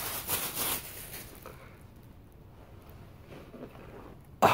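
Crinkly white wrapping paper rustling as it is pulled away from new shoes, loudest for about the first second, then fainter handling noise.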